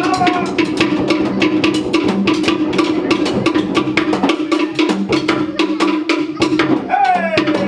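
Drum-led dance music with a rapid, even run of sharp wooden-sounding drum strikes over a steady low tone, in the style of Tahitian dance drumming. A sliding, falling cry or call near the end.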